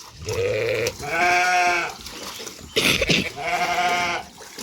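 Sheep bleating: three drawn-out bleats, the first lower-pitched, with a brief sharp knock or splash between the second and third.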